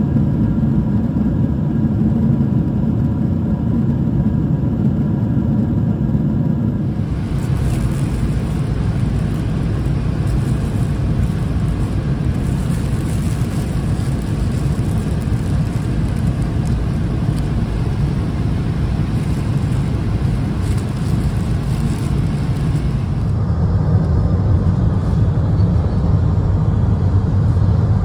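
Steady airliner cabin noise of a Boeing 777-300ER in flight: a continuous rumbling hum of engines and airflow, heaviest in the low range. Its tone changes abruptly about seven seconds in and again near the end, as separate recordings are joined.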